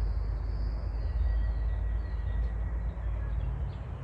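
Outdoor forest ambience dominated by a steady low rumble of wind and handling on a hand-held phone microphone. A faint high, thin bird call runs through the first couple of seconds.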